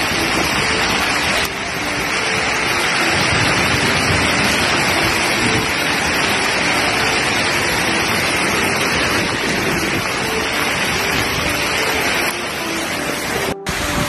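Hailstorm: heavy rain mixed with small hailstones pouring down, a dense, steady hiss.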